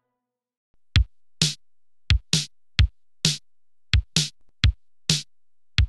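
Electronic drum-machine beat: deep kick thumps alternating with short snare-like hits, about two a second, starting after a second of silence.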